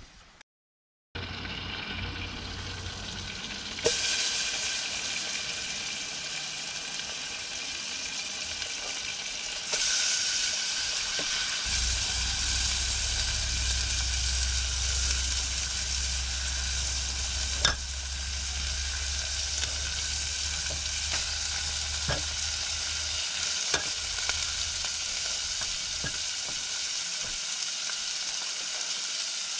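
Meat sizzling and frying in a hot pan, a steady hiss that gets louder in steps, with a few sharp clicks of a utensil against the pan.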